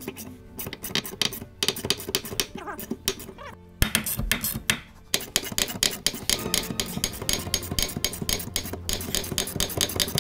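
Background music with a quick, steady beat, and a single sharp knock about four seconds in.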